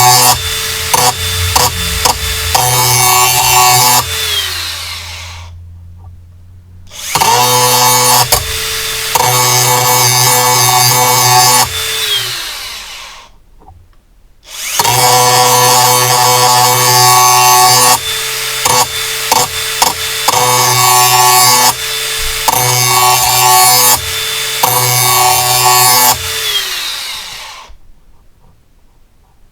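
Angle grinder grinding the cutting edge of a steel lawnmower blade in repeated short passes over a steady motor whine. The grinder is switched off and spins down three times, about four seconds in, about twelve seconds in and near the end, starting up again twice in between.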